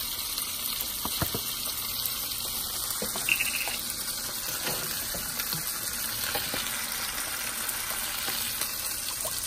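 Steady sizzling of swai fish fillets frying in oil in a cast-iron skillet. The fish is still partly frozen, and its moisture makes the sizzle loud.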